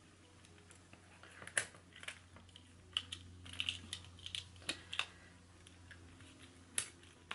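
Keys and a metal split key ring clicking and clinking as fingers thread a car key fob onto the ring: light, irregular clicks, about eight in all, some with a short metallic ring.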